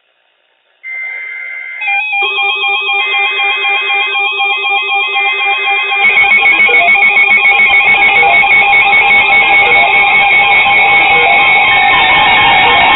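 Loud electronic alert tones: several steady pitches layered with a stepping, warbling pattern. They start about a second in and grow fuller and buzzier about six seconds in.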